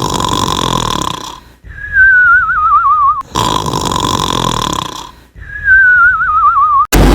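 Cartoon-style snoring, twice: a rasping snore on the in-breath with a steady whistling tone in it, then a wavering whistle that falls in pitch on the out-breath.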